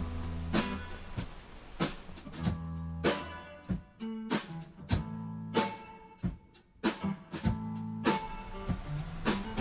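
Background guitar music with plucked and strummed notes over held low bass notes, punctuated by sharp rhythmic hits.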